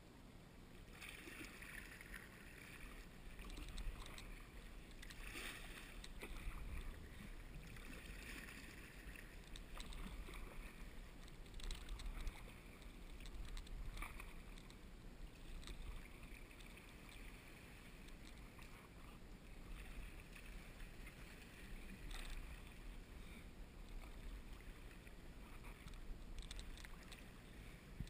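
Kayak paddle strokes in calm sea water: the blades dip and splash every couple of seconds, over a low rumble.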